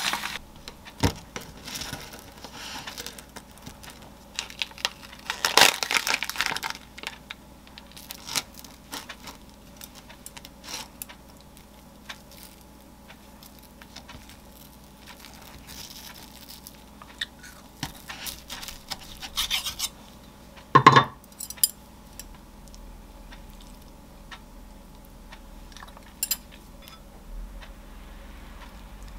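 Kitchen handling sounds: scattered light knocks and scrapes of a knife, utensils and food on a wooden cutting board and wooden plate. There is a rustling stretch about five seconds in and one louder knock with a short ring about two-thirds of the way through.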